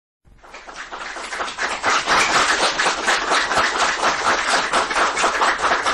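Audience applause, building up over the first two seconds and then holding steady.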